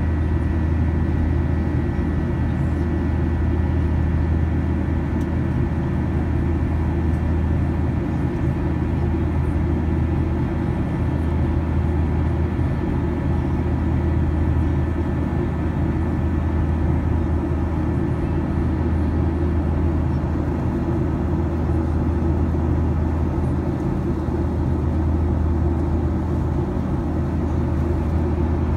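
Steady cabin noise inside a Boeing 737-800 in flight: the deep drone of its CFM56-7B engines and the rush of air past the fuselage. Faint high engine tones sit above the drone and fade over the first several seconds.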